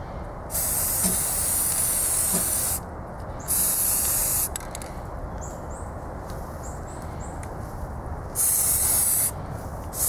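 Aerosol spray paint can spraying black paint onto the metal parts of a kerosene heater: three bursts of hiss, the first about two seconds long and the next two about a second each.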